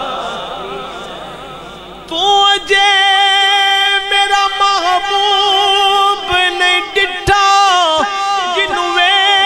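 Man's voice singing a naat in long, held, melismatic notes without words, over a PA system. The echo of the previous phrase fades out at first; about two seconds in, a new sustained note begins and steps up and down in pitch.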